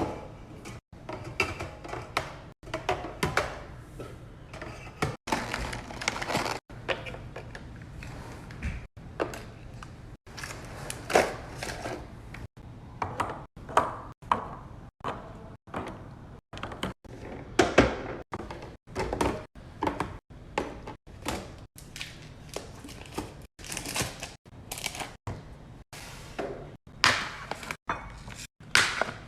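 Household handling sounds of items being stacked and set down in a refrigerator: thunks, knocks and clatters of containers on the shelves. The sequence is chopped by abrupt cuts every second or two.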